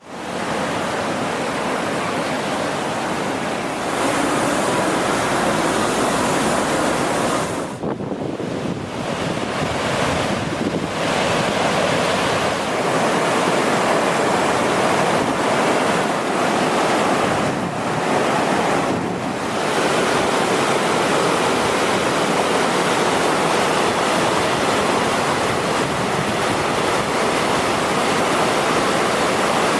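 Swollen river in flood after a typhoon: muddy floodwater rushing steadily, with wind buffeting the microphone. The rush thins briefly twice, about eight seconds in and again just before twenty.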